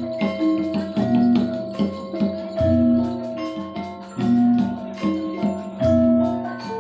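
Gamelan music: bronze metallophones strike ringing pitched notes in a steady melody, with deeper, louder strokes every second or two.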